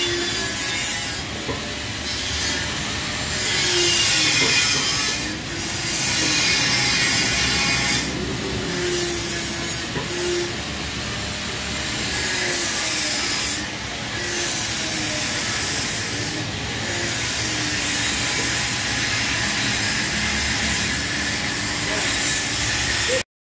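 Sandpaper rubbed by hand over a Yamaha R15 fuel tank, in repeated scratchy back-and-forth strokes, smoothing patches of body filler before painting.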